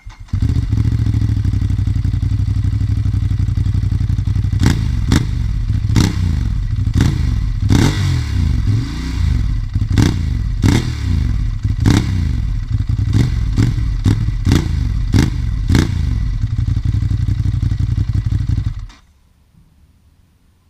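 Ducati Monster 821's stock-exhaust 821 cc L-twin engine starting up and idling, then revved in a string of quick throttle blips, each a sharp rise and fall in pitch. After the blips it settles back to idle and is switched off near the end.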